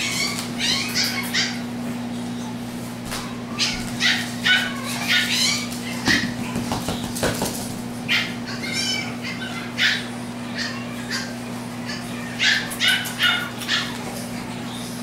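Boston terrier puppies yipping and whining in short, high-pitched cries that come in clusters, over a steady low hum.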